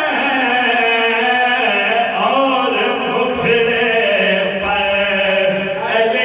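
Men singing an Urdu devotional naat (kalam) into handheld microphones over a PA, with no instruments, in long held notes that slide between pitches.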